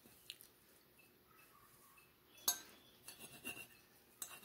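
Metal fork clinking and scraping on a ceramic dinner plate while cutting through a cooked chicken breast: one sharp clink about halfway through, a run of smaller taps and scrapes after it, and another clink near the end.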